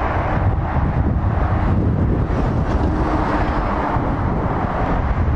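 Road traffic: a Volvo FH lorry and cars approaching, a steady wash of engine and tyre noise, with wind rumbling on the microphone.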